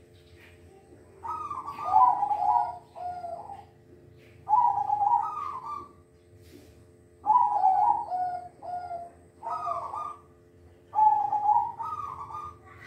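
Zebra dove (perkutut) cooing: about five phrases of rolling, warbling coo notes, each a second or two long, with short pauses between them.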